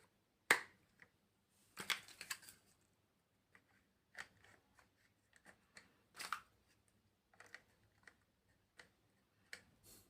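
Small plastic building blocks clicking and rattling as they are handled and pressed together, in separate sharp clicks with a louder snap about half a second in and a short rattling cluster around two seconds.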